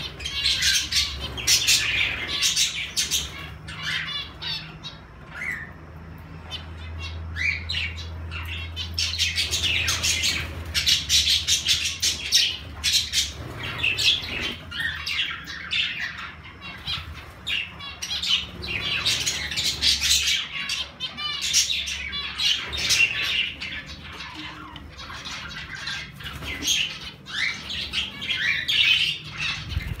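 Mixed aviary flock of budgerigars, cockatiels and zebra finches calling continuously, many short high calls overlapping one another.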